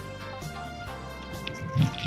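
Background music with held instrument notes and a stronger low note near the end.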